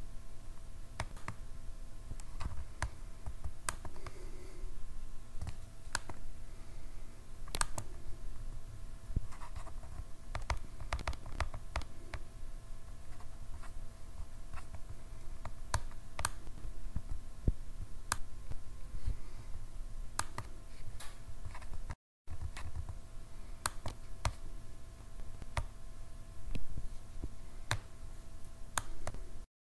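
Scattered, irregular clicks of computer input at a desk, some sharper than others, over a steady faint electrical hum and a low rumble.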